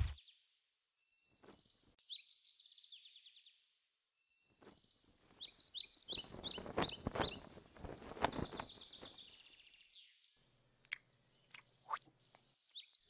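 Soundtrack birds chirping over and over in short, high calls. From about five to nine seconds in comes a stretch of rustling, scraping noises as a cartoon rabbit digs up out of a dirt mound, followed by a few light clicks near the end.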